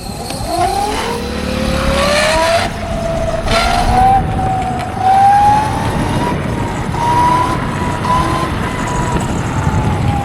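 Ather 450X electric scooter under way: its motor whine rises in pitch over the first few seconds and then holds steady, over wind and road rumble. This is a test ride on freshly replaced wheel bearings, and it runs smooth, without the earlier grinding.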